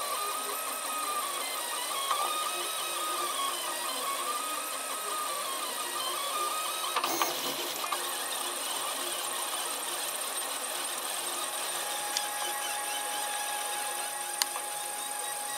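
Protomaker Sprint FDM 3D printer running a print: its stepper motors whine in pitches that rise and fall over and over as the hot end traces the curved gear outlines. About seven seconds in there are a few clicks, and after that the whine settles into a steadier tone.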